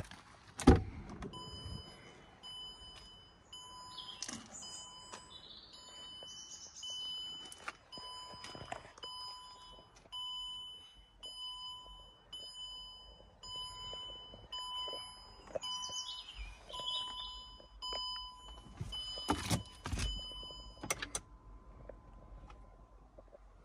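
2006 Range Rover's dashboard warning chime, an electronic beep repeating over and over, with a car-door thunk just before it starts and heavy thunks near the end, shortly before the beeping stops. Birds chirp faintly now and then.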